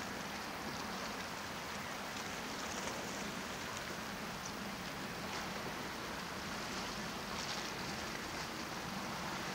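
Calm sea water lapping against rocks along a rocky shore: a steady wash with faint small splashes.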